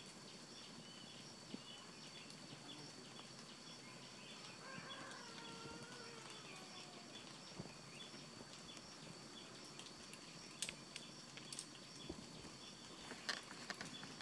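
Faint outdoor wildlife ambience: a steady high-pitched drone with regular small chirps, a brief gliding call about five seconds in, and a few sharp clicks near the end.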